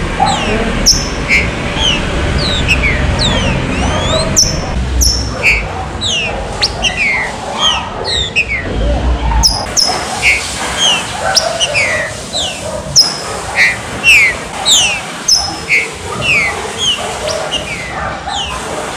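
Green-winged saltators (trinca-ferro) singing: a dense run of short, sharp, down-sliding whistled notes, several a second, with phrases from more than one bird overlapping.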